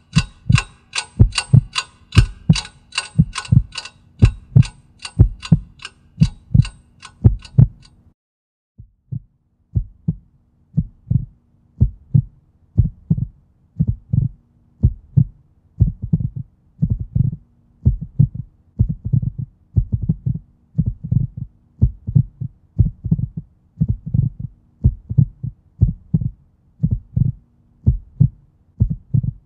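Heartbeat, a steady lub-dub about once a second, over a faint low hum. A clock ticks rapidly over it until it cuts off suddenly about eight seconds in.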